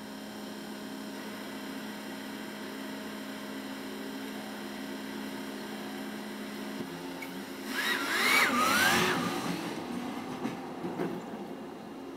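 Steady low mechanical hum of the parked Ford Transit cargo van, heard from its cab. About eight seconds in, a louder rushing noise with a wavering whistle-like tone rises over it for about a second, then fades.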